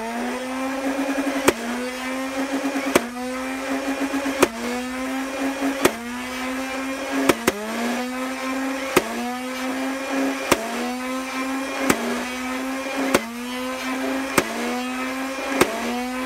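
Nerf Rival Khaos flywheel motors spinning up and holding a steady whine while the blaster fires single foam balls, about twelve sharp cracks roughly a second and a half apart. After each shot the whine dips and climbs back as the flywheels recover speed.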